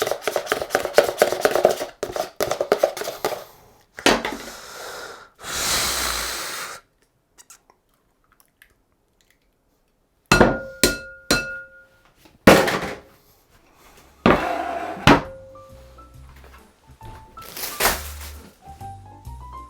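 Kitchen utensil sounds: rapid tapping for the first few seconds, a short hiss, a pause, then several separate knocks and clinks of dishes and utensils, some with a short ringing tone. Soft background music near the end.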